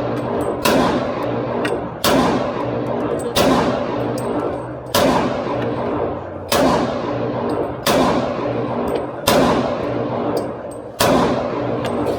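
Pistol shots fired one at a time, eight in a row at an even, unhurried pace of roughly one every one and a half seconds, each a sharp bang with a long echoing tail.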